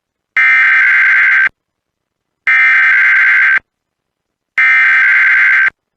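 Emergency Alert System SAME header: three bursts of buzzing digital data tones, each about a second long and about a second apart, the coded header that opens an EAS test.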